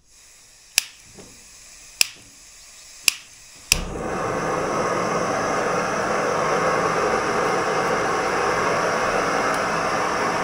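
Gas canister stove being lit: a faint hiss of gas, then four sharp clicks of the igniter about a second apart. On the fourth click, nearly four seconds in, the burner lights and runs with a loud, steady rushing sound.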